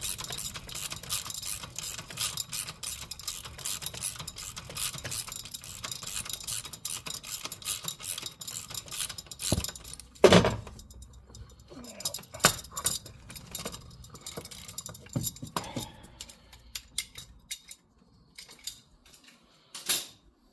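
Ratchet wrench clicking rapidly as it is wound back and forth to undo a belt tensioner bolt, with one loud metallic knock about ten seconds in, then slower, scattered clicks that die away.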